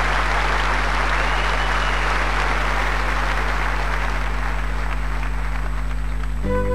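Concert audience applauding, thinning out a little over the seconds. Near the end the applause gives way to instrumental music, a classical guitar beginning to play.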